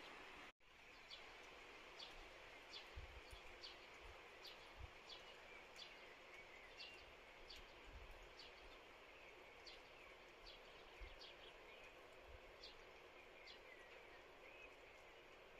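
A bird calling repeatedly with short, high chirps that drop in pitch, about one or two a second, over faint steady outdoor background noise.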